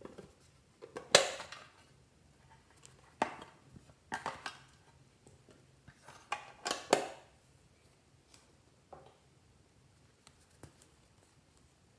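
Hard Hello Kitty case being handled and opened close to the microphone: a series of sharp clicks and knocks, the loudest about a second in and another cluster around six to seven seconds, then a few faint clicks near the end as a hand-cream tube is handled.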